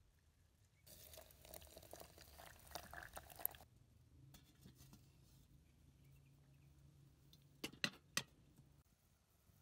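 Water poured from a soot-blackened kettle for about three seconds. Then a faint low hum, with three sharp clicks close together near the end.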